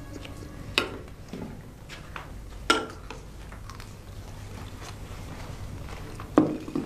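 Quiet dinner-table sounds: a few sharp, light clinks of a fork and dishes on plates and the table, the loudest near the end, over a low steady hum.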